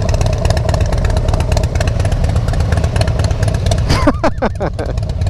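Motorcycle engine running steadily, a low rumble throughout, with a few short falling-pitch sounds about four seconds in.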